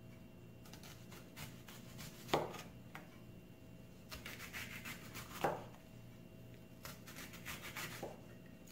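Chef's knife slicing a peeled onion on a bamboo cutting board: three runs of quick crisp cuts, with a louder knock of the blade on the board twice, about two and a half and five and a half seconds in.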